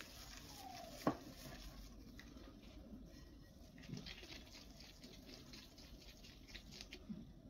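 Faint, scattered light taps and patting, with one sharp knock about a second in and a few softer thumps later.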